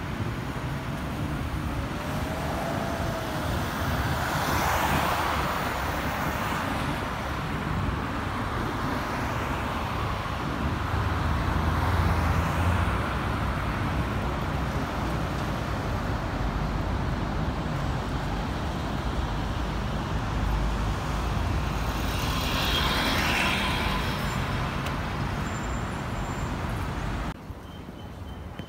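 Road traffic on a multi-lane city road: cars and buses driving past, a steady rumble of engines and tyres that swells as single vehicles go by, about 5 s in and again about 23 s in. The traffic noise drops off suddenly near the end.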